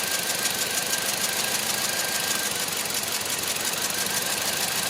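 2009 Toyota Matrix's four-cylinder engine idling with the hood open, a steady run with a fast, light, even ticking, while its ignition coils are checked for spark after a cylinder-1 misfire code (P0301). A faint high whine fades out about halfway through.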